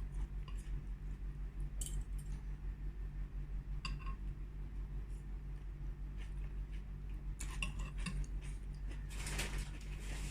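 Spoon clinking and scraping against a soup bowl while eating, with a few scattered clinks, one ringing clearly about four seconds in and a busier cluster near the end. A steady low hum runs underneath.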